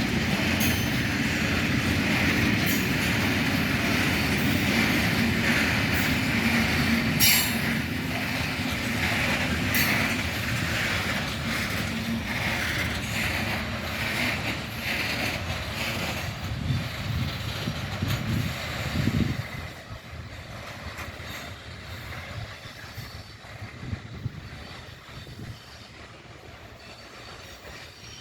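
Freight train of Eas open wagons rolling past, wheels clicking over rail joints with a high wheel squeal over the steady rumble. The sound drops off sharply about two-thirds of the way through.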